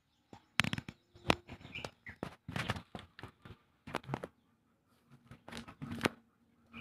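Handling noise: a quick run of sharp clicks and rustles through the first four seconds, then a shorter run about five to six seconds in, as the phone is moved and loose wires are handled on the table.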